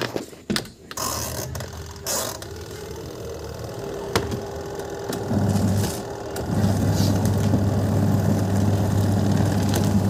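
Sharp twin-tub washing machine motor switched on at the timer knob: a low steady hum starts about five seconds in, breaks off briefly, then runs on steadily. Before that come a few knocks and rustles from handling the machine.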